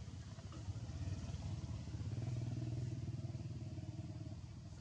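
A small engine running with a low, even pulse. It grows louder about two seconds in, then fades.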